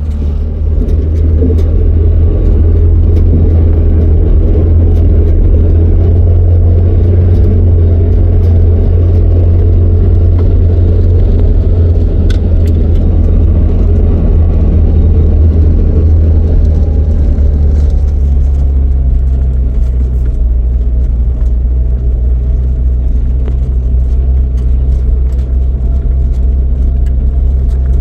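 Car driving, its engine and the road making a steady low rumble; the engine note shifts in pitch about two-thirds of the way through.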